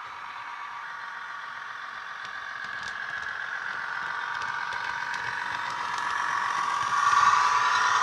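Class 158 diesel multiple unit engine sound from a DCC sound decoder, played through the small speakers of a Bachmann model train: the diesel running under power. It grows steadily louder as the model nears, with a jump in loudness about seven seconds in.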